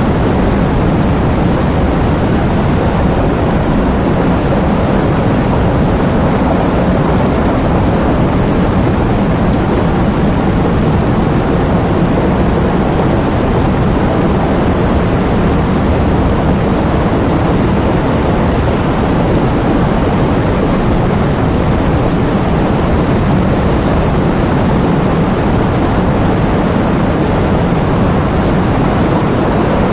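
Heavy rain with wind: a loud, steady, deep rushing noise without pauses or single drops standing out.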